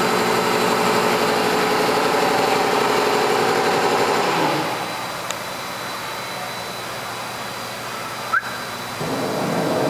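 Steady hum of running electric machinery, dropping in level about halfway through and rising again near the end, with a short click just before the rise.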